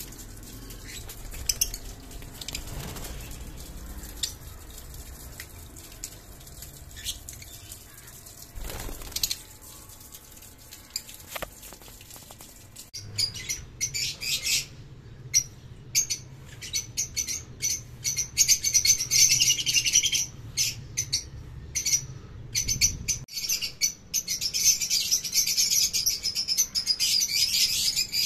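A young lovebird chirping in rapid, high-pitched series that begin about halfway through and grow loudest near the end. Before that, only a faint background with a few soft clicks.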